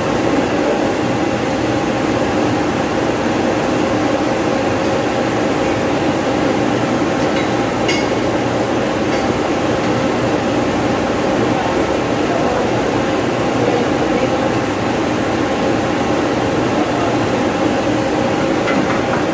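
Steady mechanical drone of running cooling tower equipment, a dense noise with several steady hum tones running through it. A single sharp click or clank about eight seconds in.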